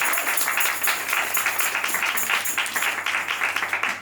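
A group of people applauding with dense, steady clapping.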